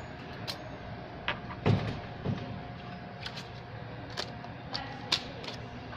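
Small tools and tiny screws clicking and tapping during an iPhone 6s Plus teardown, with irregular sharp ticks and one heavier knock about two seconds in.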